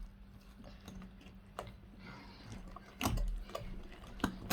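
A few light clicks and knocks of a utensil and mixing bowl as pancake batter is handled, with one louder dull thump about three seconds in, over a faint steady low hum.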